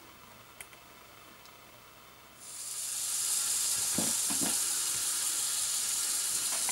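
Winch line of a Lego Technic 8297 Off-Road being pulled out off its spool: after a quiet couple of seconds, a steady high hiss sets in and carries on, with a couple of soft knocks from handling the model.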